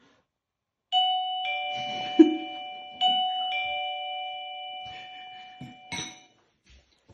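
Doorbell chime ringing a falling two-note ding-dong twice, about two seconds apart, each pair ringing on and fading. A short thump falls during the first chime, and a sharp knock comes near the end.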